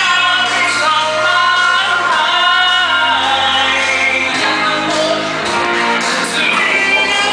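A song with sustained, gliding sung vocals over an instrumental backing.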